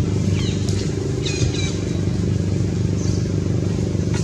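A steady low motor hum, like an idling engine, runs throughout. Short high chirping calls come about half a second in and again about a second later.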